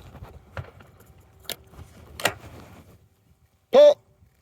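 A few sharp metallic clicks from a 12-gauge over-and-under shotgun's action, then a short loud shout near the end.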